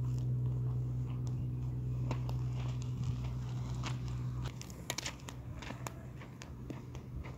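Crunching and crackling of a loaded metal wheelbarrow and flip-flop footsteps over dry dirt and straw debris, with a cluster of sharper clicks about five seconds in. A steady low hum runs through the first half and cuts off suddenly about four and a half seconds in.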